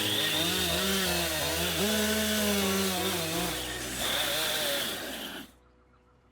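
Chainsaw cutting into a cedar log, its engine pitch rising and falling as it bogs and recovers under the cut, then cutting off abruptly about five and a half seconds in.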